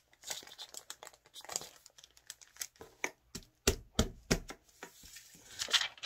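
Crinkling and crackling of a clear plastic pack of origami paper being handled while a sheet of coloured paper is pulled out. Irregular crackles, loudest in a cluster about two-thirds of the way through and again near the end.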